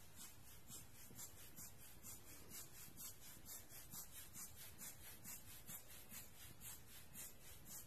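Giottos Rocket rubber-bulb air blower squeezed over and over, giving quick faint puffs of air at about five a second.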